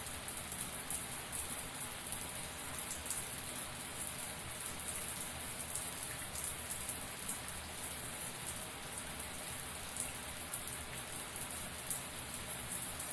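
Shower water spraying steadily, with a dense spatter of small droplets splashing.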